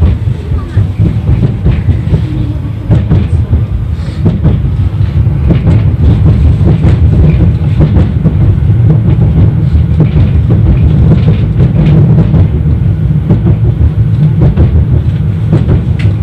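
71-931 Vityaz tram running along the track between stops, heard from inside the car: a loud, steady low rumble of wheels and motors with scattered clicks from the rails. It grows louder about three seconds in.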